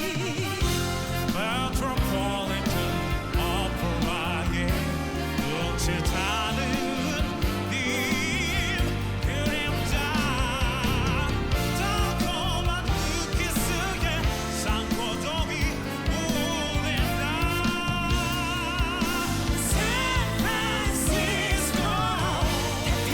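Trot song played by a band with a steady beat, its melody line carried with wide vibrato.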